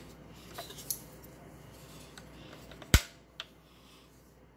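A few light clicks and one sharp knock about three seconds in, followed by another click, over a quiet background.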